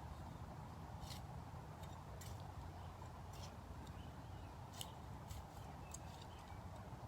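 Short, irregular scraping crunches of soil being dug and worked by hand, a dozen or so strokes spread unevenly, over a steady low rumble.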